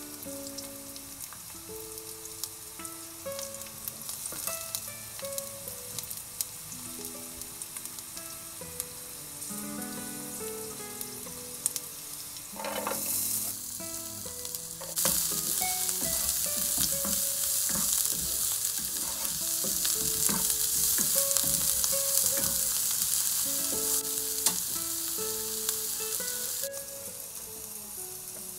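Food frying in hot oil in a pan: a steady sizzle with scattered clicks of stirring, which turns much louder and fuller about halfway through and drops back shortly before the end. A soft melody of background music plays underneath throughout.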